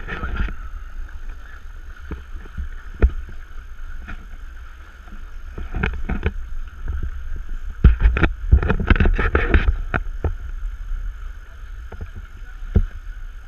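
Wind buffeting the microphone on a sailing catamaran, over a steady rush of water along the hulls. Scattered knocks and rattles run through it, with a dense cluster a little past the middle.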